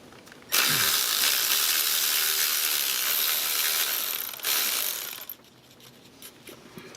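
Cordless power tool running for about four seconds, then trailing off, as it spins out an ignition coil hold-down bolt.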